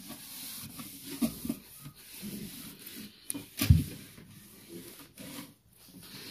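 Irregular rubbing and scraping of objects being handled, with one sharp knock a little over halfway through.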